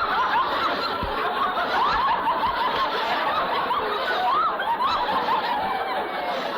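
Studio audience laughing, many voices together in one long wave of laughter that eases off near the end.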